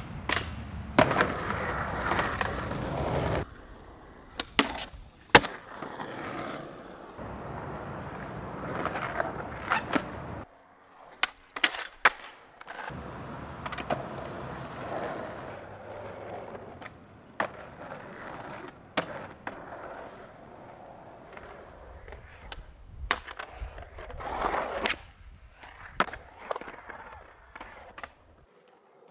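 Skateboard wheels rolling on concrete, with sharp cracks and slaps from the board popping and landing, in several separate takes where the rolling noise changes abruptly.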